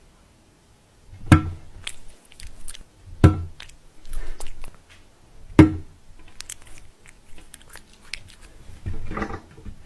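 Three loud, sharp knocks about two seconds apart, with softer clicks and rustling between them.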